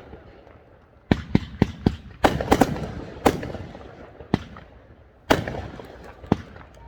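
Fireworks going off: a quick run of sharp bangs about a second in, then single bangs roughly a second apart, each trailing off in a rumbling echo.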